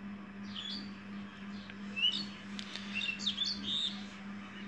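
Small birds chirping in short, quick calls, with a steady low hum underneath.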